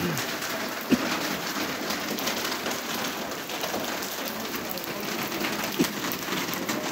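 Steady rain falling on a paved street, a hiss full of small drop ticks. Two short knocks stand out, about a second in and again near the end.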